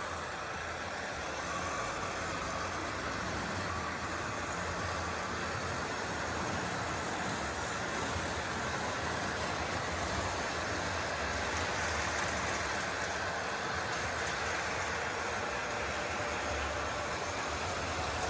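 Electric model train running steadily along the track, a continuous motor and wheel-on-rail noise, as it works up a grade on a little too little power.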